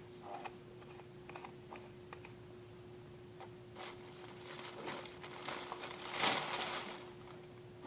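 A plastic shower gel bottle being handled and squeezed over a mixing bowl: scattered light clicks and crinkles, then a longer noisy squirt about six seconds in, the loudest sound, over a faint steady hum.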